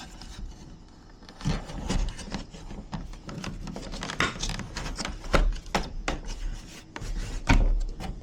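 Irregular rubbing and scraping with several sharp knocks, starting about a second and a half in, as of hardware being handled and worked into place.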